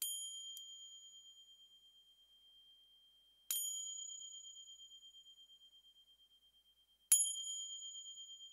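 A high bell-like ding struck three times, about three and a half seconds apart, each ringing on one pitch and fading slowly.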